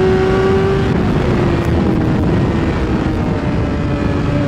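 2016 BMW S1000RR's inline-four engine running hard at high revs under wind rush, its note sinking gradually lower over a few seconds.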